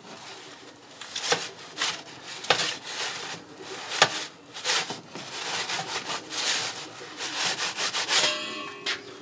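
Metal pizza peel scraping and sliding over a stone pizza-oven base as it is worked under a pizza, a run of irregular rough scrapes that grows busier near the end.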